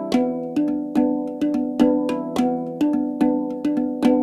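Instrumental background music: a steady run of ringing notes, each with a sharp start, about two or three a second.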